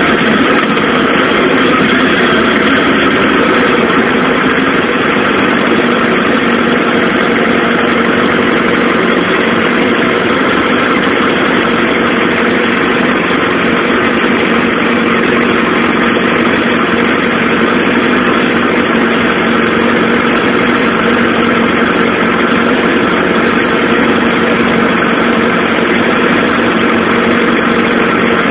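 Suzuki GSX-R SRAD motorcycle's inline-four engine running steadily near idle, its note dropping slightly in the first couple of seconds and then holding.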